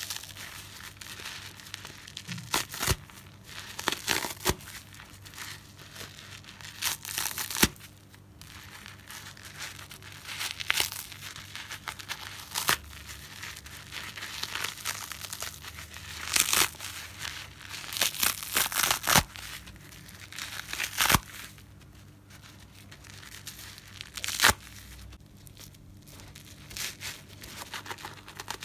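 A soapy natural car sponge being squeezed and torn apart by hand: irregular crackling, tearing sounds in bursts, with several sharp snaps, the loudest about eight seconds in.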